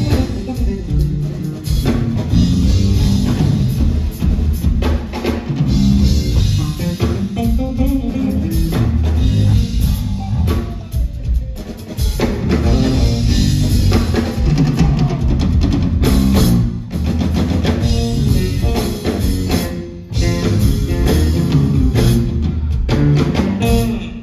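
Live electric bass guitar and drum kit playing together: busy bass lines under rapid drum hits and cymbals. The music cuts off abruptly at the very end.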